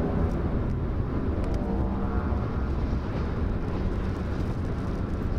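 Car driving on a wet motorway, heard from inside the cabin: steady road and tyre noise with a strong low rumble. A music bed fades out in the first moment.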